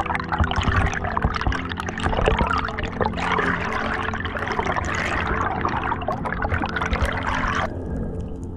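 Water bubbling and rushing against an underwater camera as air bubbles rise past it, cutting off suddenly near the end.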